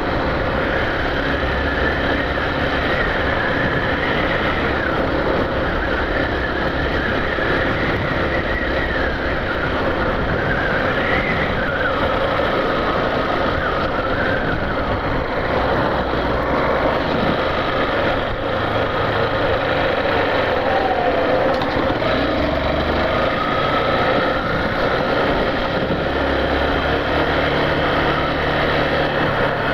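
Yamaha Factor 150 motorcycle's single-cylinder four-stroke engine running while riding, under steady wind and road noise, its pitch rising and falling a few times as the speed changes.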